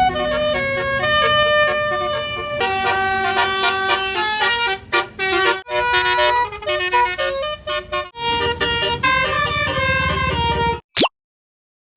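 A bus's multi-tone telolet (basuri) horn playing a tune of quick changing notes over the low rumble of the bus engine. It cuts off suddenly about eleven seconds in, and a brief chirp follows near the end.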